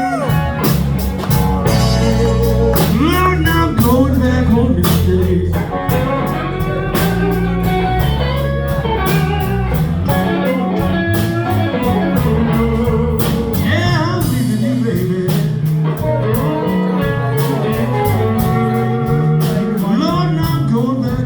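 Live blues band playing a slow blues: electric guitar lead with bent notes over a bass line and drums.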